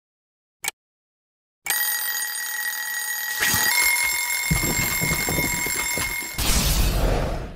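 Cartoon alarm clock ringing as a sound effect: a single tick, then a bell ring of several steady tones that steps up in pitch partway through. A low rattle joins it, and a rush of noise near the end fades out.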